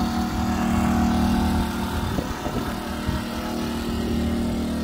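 An engine running steadily at a constant speed, a continuous hum that does not change pitch.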